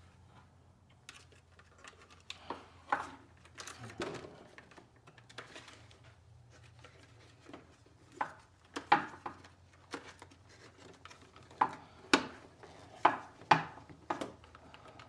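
Hard plastic instrument panel and a round gauge being handled and pushed together for a test fit: irregular small knocks and clicks, with the sharpest clicks in the last few seconds.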